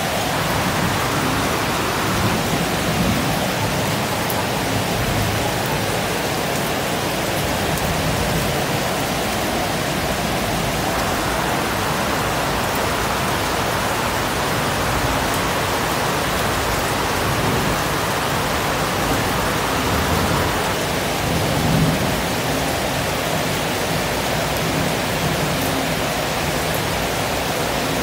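Heavy rain pouring down steadily, an even hiss with no let-up.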